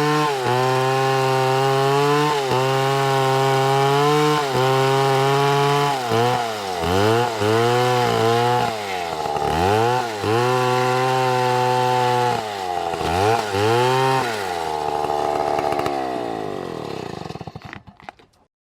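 Chainsaw cutting wood at high speed, its pitch dipping briefly every couple of seconds under load. Then it is revved up and down several times, and over the last few seconds its pitch slowly sinks as the sound fades out.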